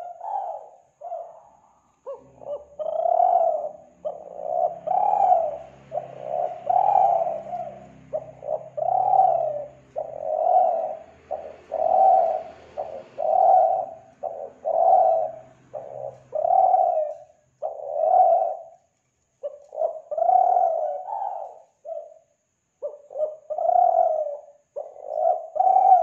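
Spotted dove cooing: a long series of repeated coo notes, about one a second, with a few brief breaks.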